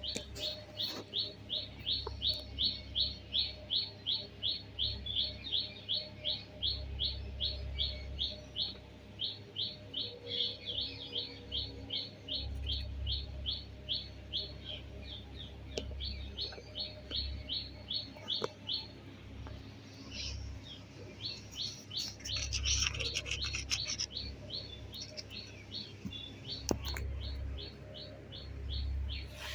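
Pet parrot chirping over and over in an even series of short high chirps, about three a second. The chirps pause briefly about two-thirds of the way through, then resume with a short louder burst.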